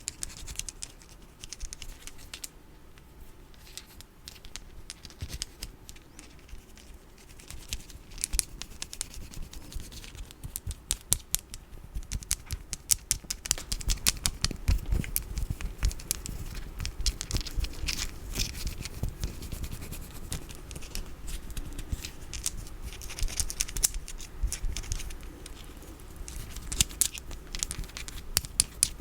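Close-up tapping and scratching on small cat-themed goods: rapid sharp clicks and scrapes, sparse at first and growing denser and louder after about eight seconds.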